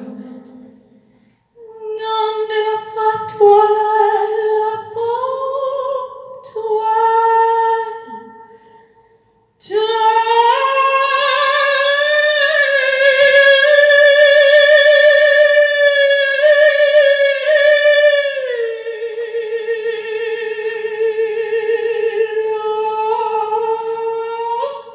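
A woman singing unaccompanied: a few short phrases with pauses, then about ten seconds in, two long held notes with vibrato, the second a little lower, ending just at the close.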